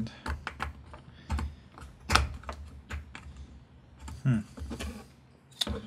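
Irregular small clicks and taps as a Piko BLX flight controller board is pressed down onto the metal standoffs of a carbon-fibre frame. Its mounting holes are a very tight fit on the standoffs.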